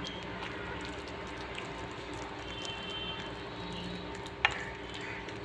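Faint squishing of fingers mixing wet spice paste in a ceramic plate over a steady low hum, with one sharp click about four and a half seconds in.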